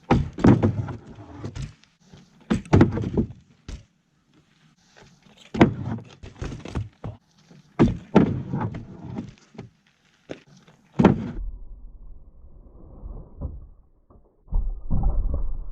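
BMX bike knocking and clanking against the ground as it is ridden and landed: a string of sharp thuds, about eight in the first eleven seconds, then a low rumble near the end.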